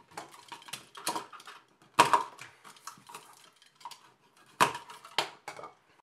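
Sheathed electrical cable being handled and cut at a plastic electrical box: rustling and scraping with a string of sharp clicks and knocks, the loudest about two seconds in and just before five seconds in.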